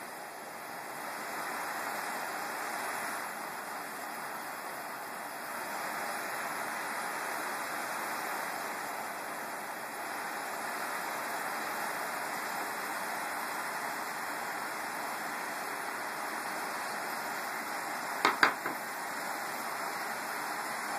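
Shmel-1 petrol primus stove burning with a steady, even humming hiss. A few sharp knocks come close together near the end, louder than the burner.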